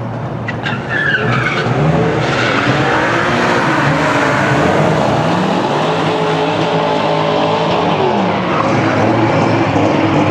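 A BMW sedan and a second car launching side by side down a drag strip, their engines revving hard and climbing in pitch through several upshifts. There is a brief high squeal about a second in.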